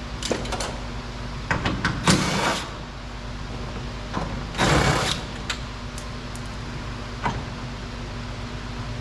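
Hands and tools working on a car door's plastic trim panel: scattered clicks and knocks with three short bouts of scraping and rustling, over a steady low hum.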